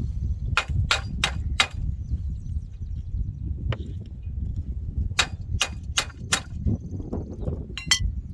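Hammer blows on the steel parts of an old disc tiller: two runs of four sharp strikes about three a second, a single strike between them, and a ringing clang near the end, over a steady low rumble.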